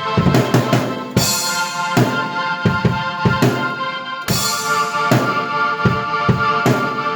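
Drum kit and keyboard played together in an instrumental piece: held keyboard chords over a drum beat of bass drum and snare, with cymbal crashes about a second in and again past the middle.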